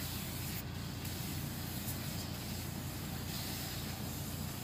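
Motorised sprayer running steadily, a low hum under the even hiss of a hose-fed spray gun misting nutrient solution onto grape bunches.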